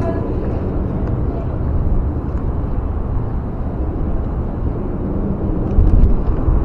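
Outdoor street noise: a steady low rumble of city traffic that swells near the end.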